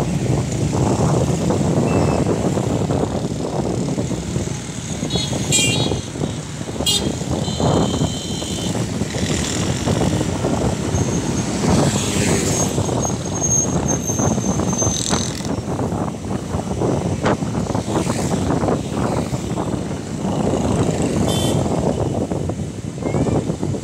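Road traffic heard from a moving vehicle: a steady mix of engine and tyre noise from cars, motorcycles and rickshaws. A few brief high-pitched horn toots sound about six to seven seconds in and again near the end.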